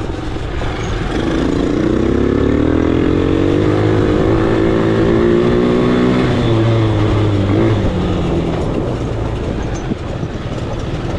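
Four-wheeler (ATV) engine under way, climbing in pitch for several seconds as it speeds up, then dropping back about two-thirds of the way through as the throttle eases off.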